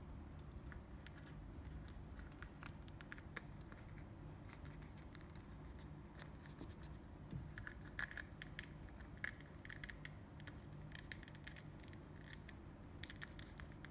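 Faint small clicks and scratchy rubbing of plastic figure parts being handled and pressed together in the hands, with a few short squeaky rubs around the middle and near the end, over a steady low hum.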